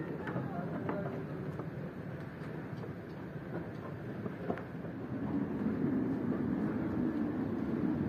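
Steady low rumbling background noise with a few faint clicks, growing louder about five seconds in.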